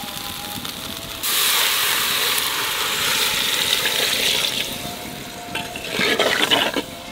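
Fried masala and vegetables sizzling in a clay pot, then water poured in about a second in, a loud rushing hiss for about four seconds as it hits the hot pot. Near the end, a ladle stirs the watery curry.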